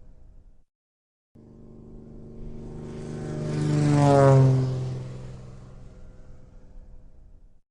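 Propeller airplane flying past. The engine drone swells to its loudest about four seconds in, and its pitch drops as it passes, then it fades away. Before that, the tail of another pass cuts off abruptly under a second in.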